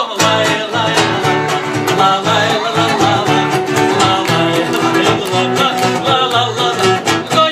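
Instrumental break in an upbeat children's sing-along song: lively music with a steady, bouncing bass line and no singing.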